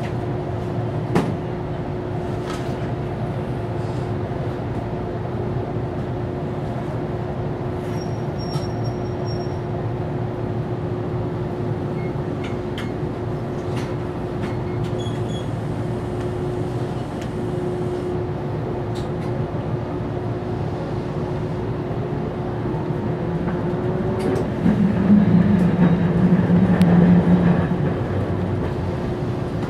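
Inside a Toyohashi Railway 780-series streetcar running, a steady rumble and hum from motors and wheels on the rails, with a few short clicks. About 25 seconds in, a louder low drone swells for about three seconds as the car rounds the curve into the terminus.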